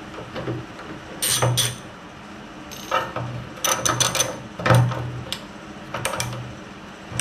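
Hand ratchet and socket working a fuel-tank mounting bolt on a Massey Ferguson 35 tractor, the pawl clicking in quick runs of strokes separated by short pauses.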